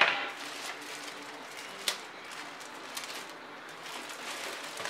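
Rustling and handling of packaging as the keyboard is taken out of its box, with one sharp click or knock about two seconds in.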